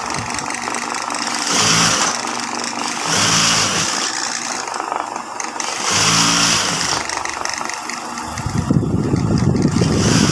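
Industrial high-speed sewing machine stitching in short runs, its motor whirring up in three brief bursts and then running longer near the end.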